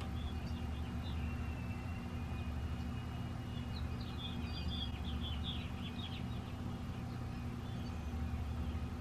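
Outdoor ambience: a steady low rumble with birds chirping over it, the chirps busiest about four to six seconds in.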